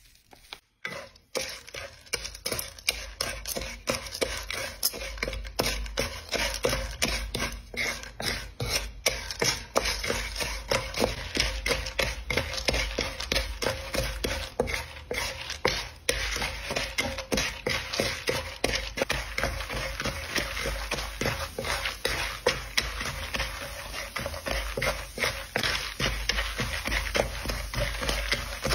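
Wooden spatula stirring and scraping popcorn kernels around a nonstick wok, many quick clicks of kernels against the pan. The oil and sugar sizzle and bubble as they heat, the hiss growing later on.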